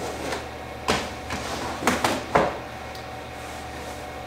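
A tackle box of hooks being set back in place on a wooden shelf: a quick run of sharp knocks and clatters over about a second and a half.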